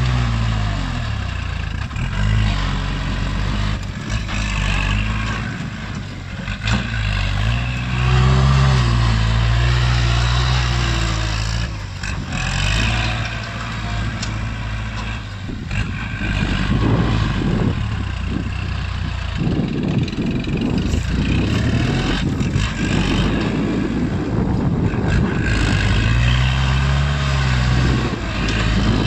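Kubota compact tractor's diesel engine working as its front blade pushes dirt, the engine note rising and falling again and again as the load comes and goes.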